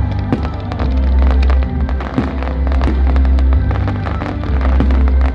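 A fireworks display, with many sharp cracks and bangs in quick succession, over loud accompanying music with held, deep bass notes.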